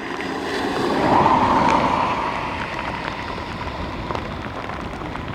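Rushing water of a rain-swollen stream running against a net set in the current, a steady hiss that swells about a second in and then eases.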